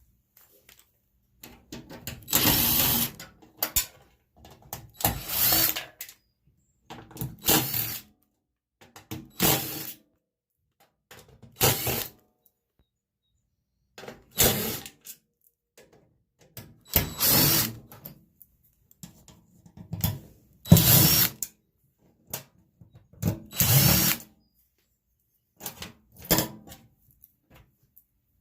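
Cordless power drill/driver running in about ten short bursts of roughly a second each, every two to three seconds, backing out the screws that hold a microwave oven's transformer and parts.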